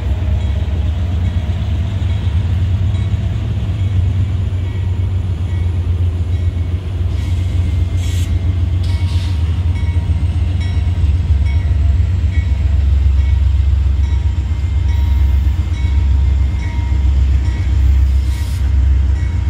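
Approaching Norfolk Southern freight train's diesel locomotives, a steady low rumble that grows louder in the second half as the lead unit nears the crossing. A faint grade-crossing bell rings about once a second.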